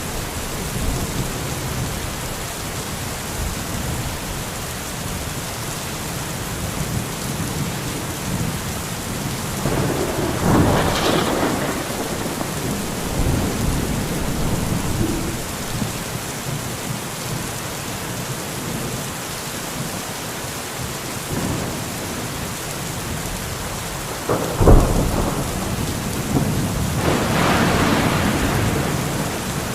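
Steady heavy rain with rolling thunder: a long rumble about ten seconds in, a sharp thunderclap near the end, then another long roll.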